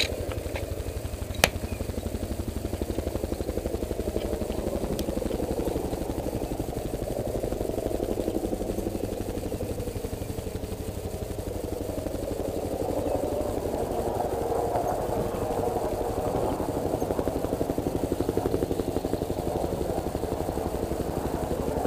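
Bell UH-1Y Venom helicopter's four-bladed rotor and turbine engines running, a fast, even rotor beat over a steady engine sound, growing louder in the second half.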